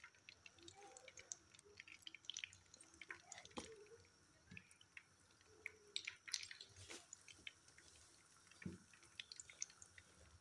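Faint, scattered pops and crackles of hot oil in a frying pan as breaded chicken nuggets are laid in to shallow-fry.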